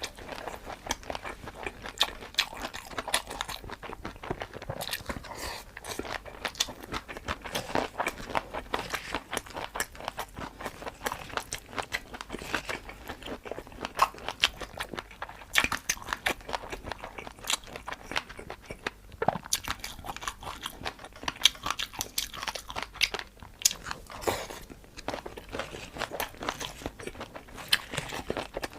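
Close-miked eating: a person biting and chewing crunchy food, with many quick, irregular crisp crunches and wetter chewing sounds throughout.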